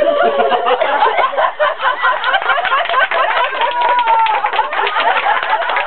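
A group of people talking over one another and laughing, with scattered hand claps and short sharp clicks.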